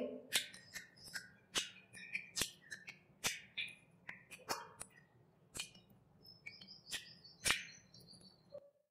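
Close-up mouth eating sounds: irregular wet smacks and clicks of biting and chewing meat off a curried chicken leg piece with rice, cutting off abruptly near the end.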